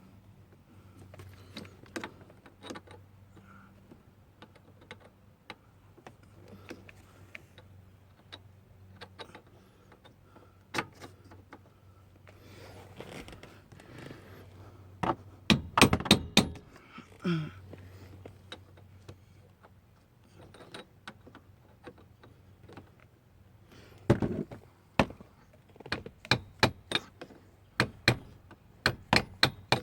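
Sharp metallic knocks and taps as the bolts on a Honda Pilot steering-column lock cylinder housing are struck to break them loose. There are scattered single hits, a cluster of loud knocks about halfway through, and a run of quick strikes over the last six seconds.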